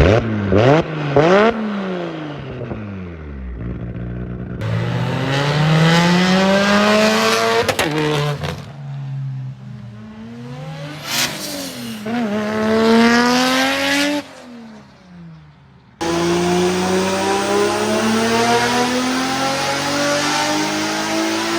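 Nissan Skyline R32 GT-R's twin-turbo RB26DETT straight-six through a cat-less titanium Tomei catback and test pipe. It gives a couple of quick rev blips, then several long climbs up through the revs, each falling away, in short clips cut together.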